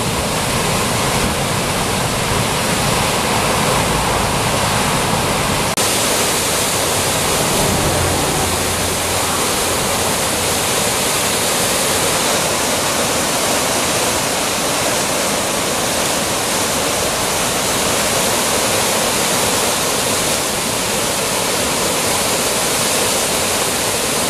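Floodwater rushing over rocks and pouring over a concrete weir: a loud, steady rush of whitewater from a river in flood. About six seconds in the low rumble drops away and the rush turns brighter.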